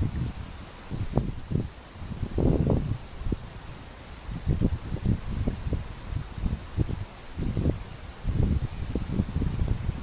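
Wind buffeting the microphone in irregular low gusts over the steady rush of a shallow, stony river, with a cricket chirping about two or three times a second.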